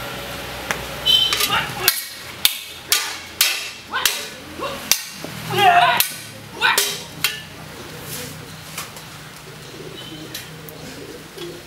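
Kalaripayattu sparring: a quick run of sharp smacks from strikes, slaps and stamps, about a dozen in the first seven seconds, mixed with short shouts from the fighters. Then it goes quieter, with only a few light knocks.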